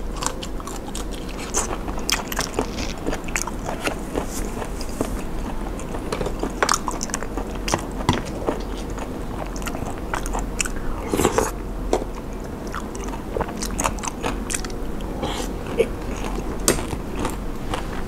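Close-miked chewing and biting by a person eating a mouthful of raw shrimp and spicy papaya salad, with irregular wet crunches and mouth clicks throughout.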